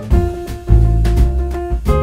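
Background jazz music with a double bass and a steady beat.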